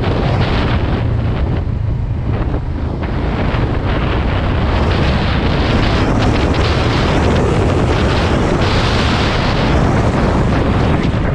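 Wind buffeting the microphone over a motorcycle engine running steadily while riding; the wind noise grows louder a few seconds in.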